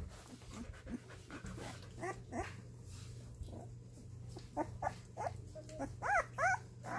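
Litter of 17-day-old Australian Shepherd puppies whimpering and squealing: scattered short high cries, with the loudest, rising-then-falling squeals about six seconds in, over a steady low hum.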